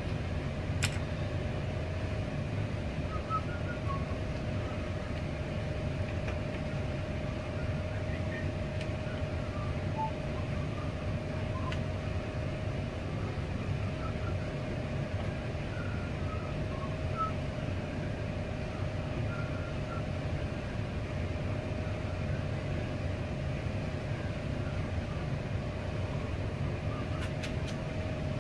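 Milling machine running steadily without cutting: a constant motor hum with a steady mid-pitched whine.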